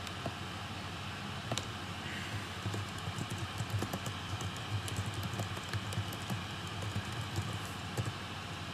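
Typing on a computer keyboard: irregular light key clicks, over a steady background hum.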